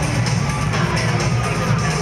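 Electronic music played over a hockey arena's sound system during a stoppage in play.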